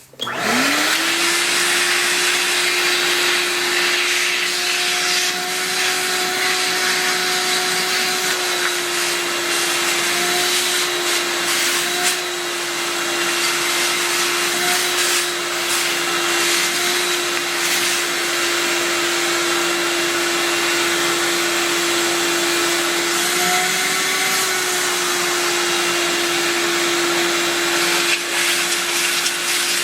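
Vacuum cleaner switched on and spinning up, then running steadily as it sucks nuts (pecans stashed by squirrels) out of an opened-up engine, with its pitch wavering briefly now and then and a few faint clicks.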